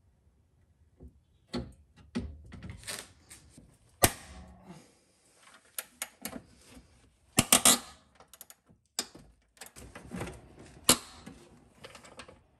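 Metal clinks, clicks and knocks of tools and suspension parts being handled at a car's front upper control arm. Scattered small clicks and rustles run between a few sharp metallic knocks: the loudest comes about four seconds in, a quick cluster follows around seven and a half seconds, and one more comes near eleven seconds.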